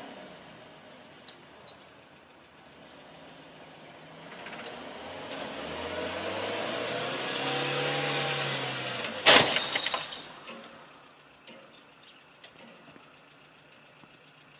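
A car engine grows louder and rises in pitch, then dips slightly. About nine seconds in comes a vehicle collision: one loud sudden impact with breaking glass, ringing for about a second.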